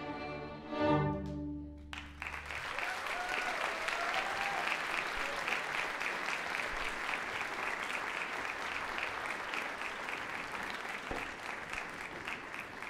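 A school orchestra's closing chord swells and cuts off about two seconds in, followed by steady audience applause that thins out near the end.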